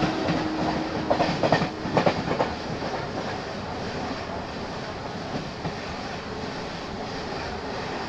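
A passing express train's LHB coaches rushing by on the next track, heard close alongside from the doorway of a moving train. A cluster of loud wheel clacks comes in the first couple of seconds, then a steady rush with clickety-clack of the wheels over the rail joints.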